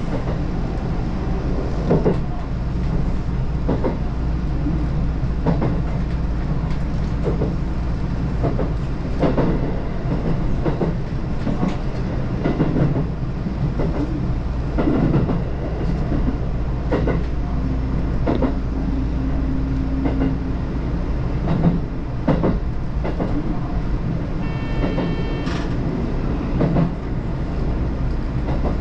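Electric commuter train running on the Tōkaidō Main Line, heard from inside the car: a steady low rumble of wheels on rail, with irregular clacks and knocks from the wheels passing over rail joints. A brief high-pitched tone sounds near the end.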